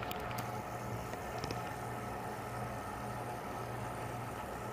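Steady low machine hum holding several fixed tones, with a few faint clicks near the start and about a second and a half in.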